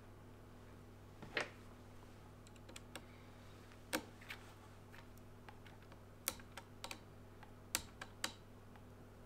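Scattered small clicks and a brief scrape from a small screwdriver tightening the screw terminals of a model-locomotive sound decoder as the motor wires are clamped in. A faint steady hum runs underneath.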